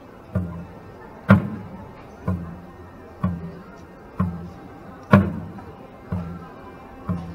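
Hand drum struck at a slow, steady beat of about one stroke a second, every fourth stroke louder and sharper, keeping time for dancers.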